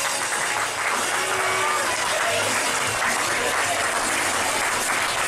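Audience applauding steadily, a dense patter of clapping with a few voices calling out over it.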